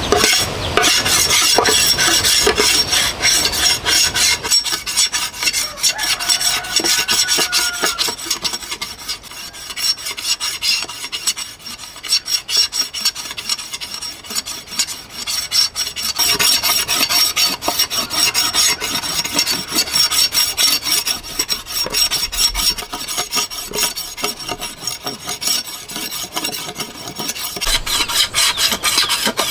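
A broad-bladed knife scraping the green outer skin off a fresh bamboo pole in quick, repeated rasping strokes.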